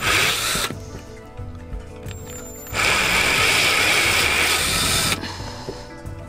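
Ryobi cordless drill/driver backing screws out of a round plug fitting, its motor whining in two runs: a short burst at the start and a longer run of about two seconds from near the middle.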